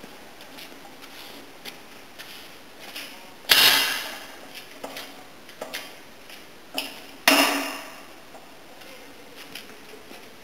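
Empty manual pallet jack being wheeled and turned on a concrete floor: light rattling and ticking, with two loud bangs, about three and a half and seven seconds in, each ringing out over about a second.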